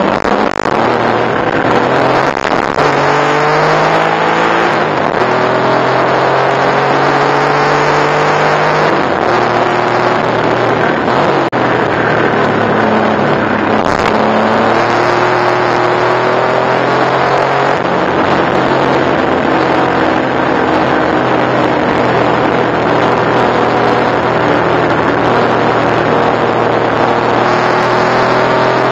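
Porsche 964 Turbo's air-cooled turbocharged flat-six heard from inside the cabin at racing speed, its pitch climbing and falling back several times as the car is driven hard through the corners. A sharp click about 14 seconds in.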